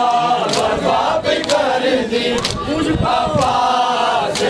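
A crowd of men chanting a noha together, with sharp slaps of hands on bare chests (matam) about once a second.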